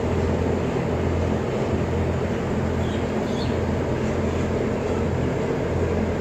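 Steady low drone of a running closed-house blower system, with a mains hum from the energised contactors in its control panel.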